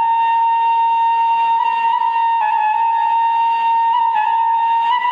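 Central Javanese bamboo suling flute playing one long held note with small ornamental turns of pitch.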